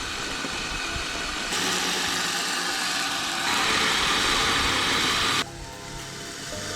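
Kyosho Trail King RC snow vehicle driving on icy ground, its motor and tracks running with a steady whirring rush. It gets louder in two steps and drops off sharply about five and a half seconds in.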